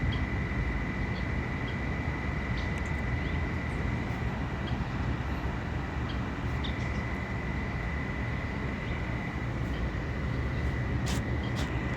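Shrimp cooking in a pan of butter sauce, sizzling and bubbling with scattered small pops over a steady low rumble.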